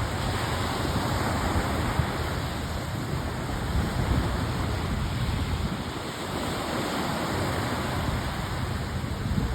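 Wind buffeting the microphone over a steady wash of waves on the river shore, gusting unevenly.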